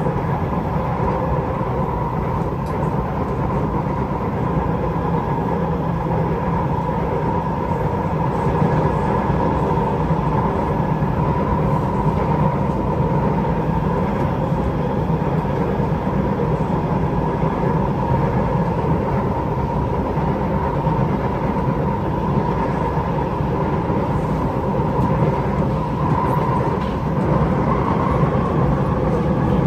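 Cabin noise of an SMRT C751B train (Kawasaki–Nippon Sharyo build with Fuji Electric IGBT-VVVF traction) running at speed: a steady low rumble of wheels on rail with a steady whine from the traction motors, which rises slightly near the end.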